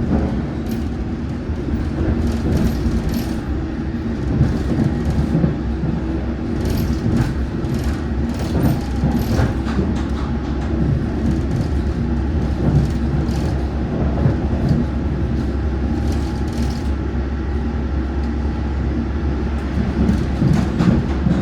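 London Underground Metropolitan line S8 Stock train running along the track: a steady low rumble with scattered clicks from the wheels and rails, and a faint steady motor whine in the background.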